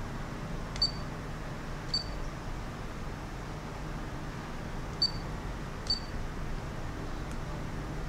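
Four short, high-pitched beeps from a handheld RC car transmitter as its button is pressed, two about a second apart near the start and two more about five and six seconds in, over a steady low hum.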